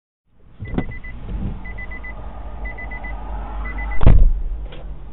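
A high electronic beep sounding in quick runs of four short pips, repeating about once a second, over a low steady vehicle rumble. About four seconds in there is a single loud thump.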